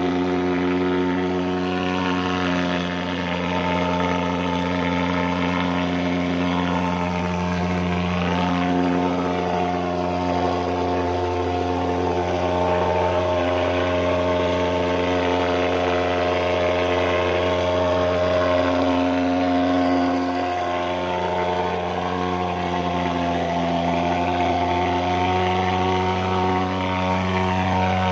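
Portable pulse-jet thermal fogger running steadily while it pours out insecticide fog, a constant loud drone with little change in pitch.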